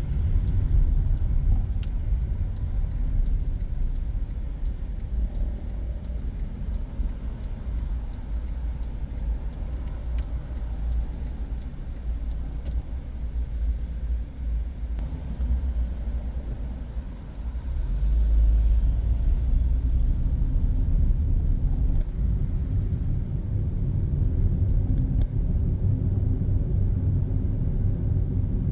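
Car driving: a steady low rumble of engine and tyre noise, which grows louder about eighteen seconds in.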